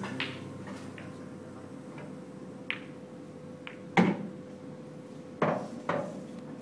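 Pool balls clicking on an English pool table: the cue tip striking the cue ball and balls knocking together, a scatter of sharp clicks with the loudest about four seconds in, over a faint steady hum.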